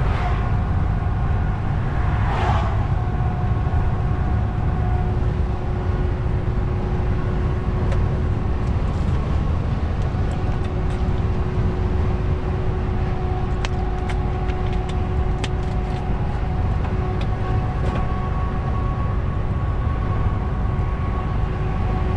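DAF truck's engine and road noise heard from inside the cab while driving: a steady low rumble with a faint steady whine over it. A short hiss comes about two seconds in, and a few light ticks come in the middle.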